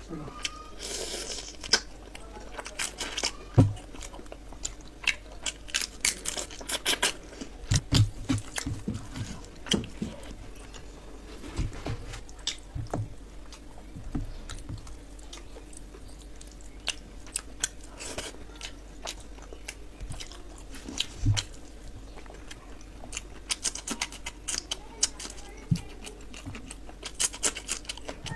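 Close-miked eating sounds: irregular crunching and chewing, along with fingers working rice and fish curry.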